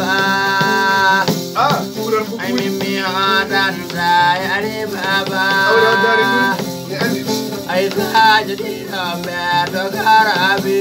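A man sings in long, wavering held notes broken into phrases, over a shaken rattle keeping time.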